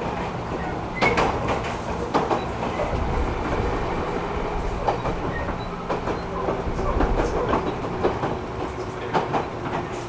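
Running noise inside the passenger car of a JR 205-series electric commuter train between stations. The wheels rumble on the rail under a steady hum, with sharp clacks over rail joints every second or so.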